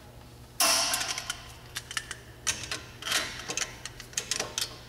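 Ratchet of a torque wrench clicking in irregular short runs as brake caliper bolts are tightened to torque, starting about half a second in.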